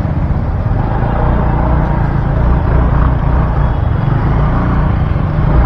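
Motorcycle riding along, its engine and the road wind making a steady low rumble.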